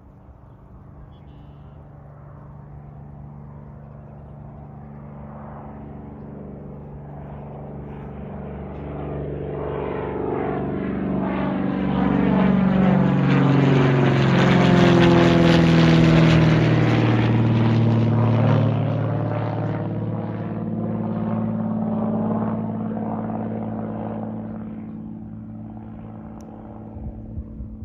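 Aircraft flying low overhead. Its engine noise swells to a peak about halfway through, drops in pitch as it passes, and fades away.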